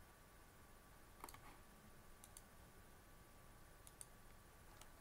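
Faint, scattered clicks of a computer mouse, some in quick pairs, over a quiet room with a faint steady tone.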